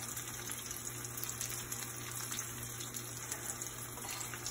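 Fish frying in hot oil in a pan: a steady sizzle.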